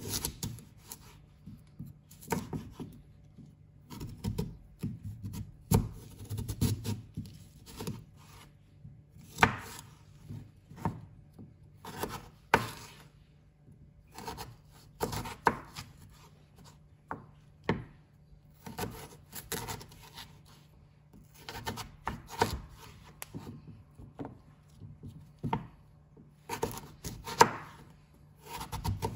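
Chef's knife cutting through hard raw sweet potato on a plastic cutting board: irregular knocks as the blade hits the board, with the blade rubbing through the dense flesh between them. The loudest knock comes near the end.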